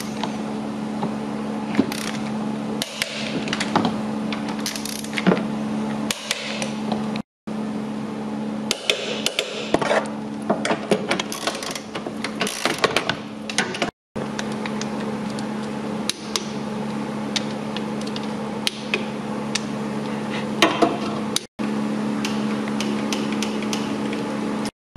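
Hand tools knocking and clinking on metal engine parts while the engine is being reassembled, scattered sharp strikes over a steady low hum. The sound breaks off for an instant four times.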